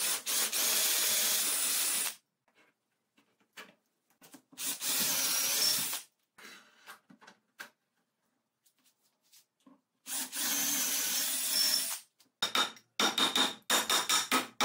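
Cordless drill boring dowel holes through a dowel jig's bushing into a clamped wooden board: three runs of about two seconds each, with small handling clicks between. Near the end comes a quick series of short knocks.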